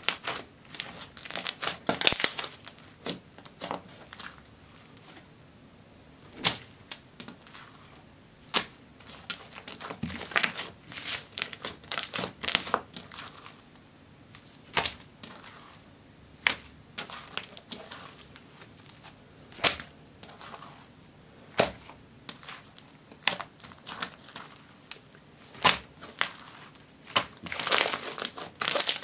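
Hands kneading, folding and stretching a thick, glittery gray slime: irregular sticky pops and crackles as it is squeezed and pulled apart, with short quiet pauses between handlings.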